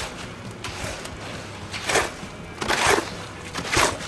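Wet concrete being mixed by hand in a wheelbarrow: four gritty scraping strokes through the mix, about one a second.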